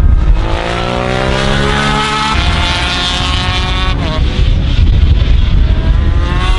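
Sports motorcycle engines at high revs on a race track, each rising in pitch as the bikes accelerate. The sound changes abruptly twice, about two and four seconds in.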